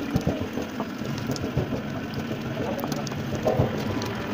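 A long-handled metal ladle scraping and stirring a thick khoya-and-sugar paste in a large metal karahi, with scattered knocks of the ladle against the pan over a steady low rumble.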